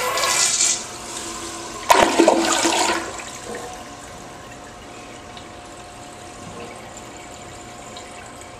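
Crane Plumbing Hymont toilet flushing, a flush called weak: water rushing through the bowl, a sudden louder gush about two seconds in lasting about a second, then fading to a quieter steady run of water.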